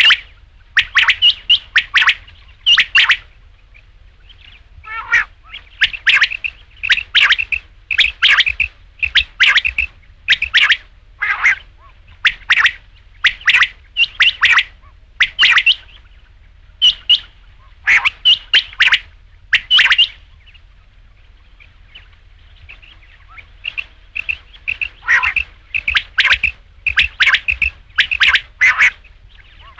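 Quail (batair) calling: short, sharp high notes repeated in quick runs, broken by two pauses of a few seconds.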